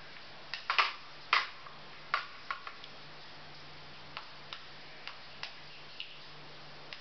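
Steel spoon clinking and scraping against a small ceramic bowl while stirring almonds into a crumbly dark chocolate mixture: irregular clinks, the two loudest within the first second and a half, lighter ones after.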